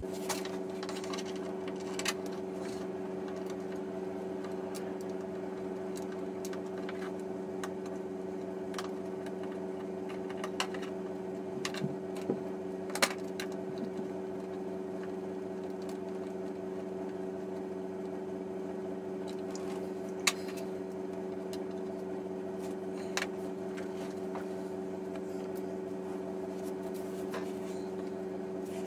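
A steady hum runs throughout, with scattered sharp metallic clicks and clinks from hand tools and bolts as a rack is bolted down; the audio is sped up.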